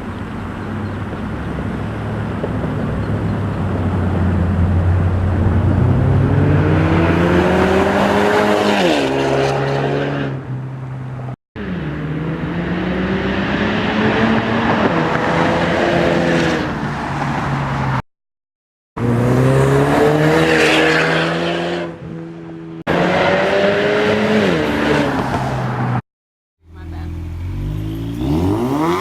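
2015 Ford Mustang EcoBoost's turbocharged 2.3-litre four-cylinder, muffler deleted and a glasspack in place of the resonator, accelerating hard: the exhaust note climbs, drops at each upshift and climbs again. Several such pulls, each cut off suddenly by a brief silence.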